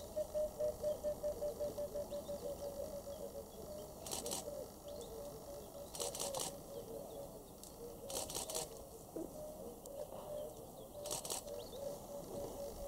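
Bush ambience with a steady, rapidly pulsing call in the background, broken four or five times by short crackling rustles of leaves and twigs as a greater kudu bull tears leaves from the branches it is browsing.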